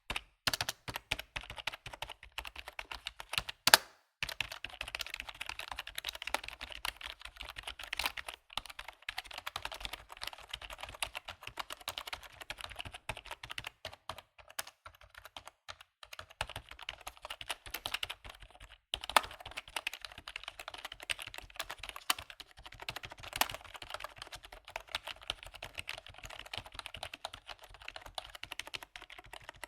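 Computer keyboard typing: a fast, continuous run of key clicks with short pauses, and one louder key strike a little under four seconds in.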